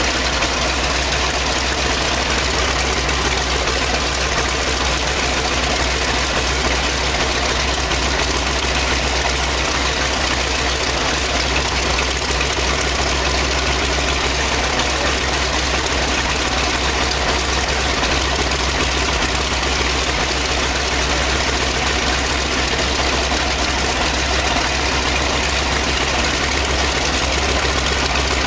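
A DC-3's Wright Cyclone R-1820 nine-cylinder radial engine idling steadily and loudly after start, on its first run following heavy maintenance.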